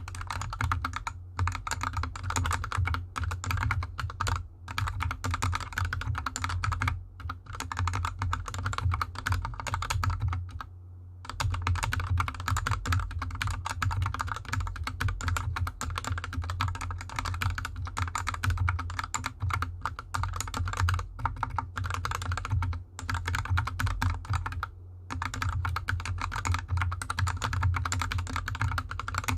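Fast, continuous typing on a GK64X hot-swap mechanical keyboard with lubed Gateron Yellow linear switches and DSA keycaps, the keyboard resting on a desk mat. The typing pauses briefly twice, and a steady low hum runs underneath.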